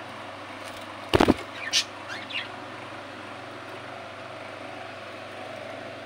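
A knock of handling noise about a second in, then a brief high bird chirp from the cage, over a steady faint background hum.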